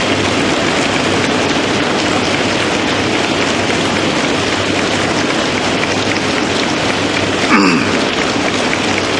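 Members of the assembly chamber applauding in welcome, a dense steady clatter of many hands. A brief shout rises over it about seven and a half seconds in.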